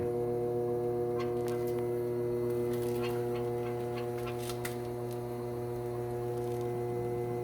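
Steady electrical mains hum with a few faint ticks and clicks.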